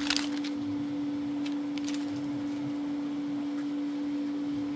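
A steady hum running at one even pitch, with a brief crinkle of a foil card-pack wrapper right at the start and a couple of faint ticks about a second and a half in.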